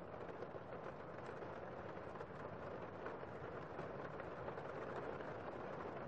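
Heavy rain heard from inside a building, a steady dense patter with no break.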